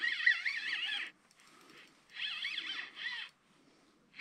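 Spinning reel being cranked in short spurts, a whirring whine that wavers with the turns of the handle, as a lure is retrieved in jerks. The first spurt stops about a second in, and two shorter ones follow in the second half.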